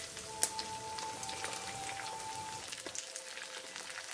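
Poha (flattened rice) patties shallow-frying in hot oil in a nonstick pan: a steady crackling sizzle with a sharp click about half a second in.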